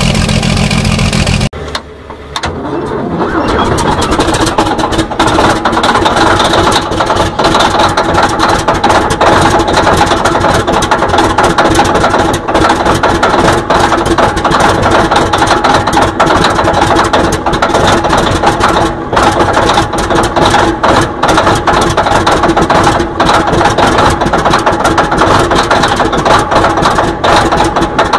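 A large diesel engine running, cut off abruptly about a second and a half in. Then a cold diesel engine on heavy equipment turns over briefly, catches and comes up to a loud, steady run with a dense, rapid knock, smoke coming from its exhaust stack.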